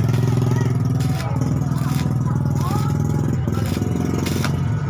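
A motor running steadily with a low, even hum and a fine rapid flutter, dipping slightly about a second in. This is most likely the used water-pump motor powering the home-built coconut grater.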